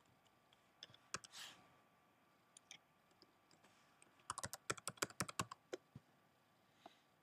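Faint keystrokes on a computer keyboard: a few scattered taps in the first second and a half, then a quick run of about a dozen keys around the middle, and a last tap near the end.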